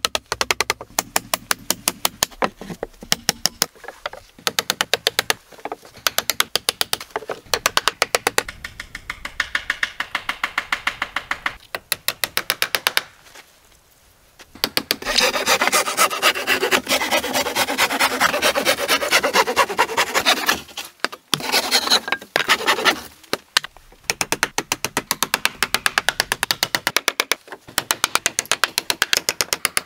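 Hatchet used as a hammer on pallet-wood boards: quick runs of sharp knocks on wood, in bursts of about a second with short pauses, briefly going quiet about halfway through.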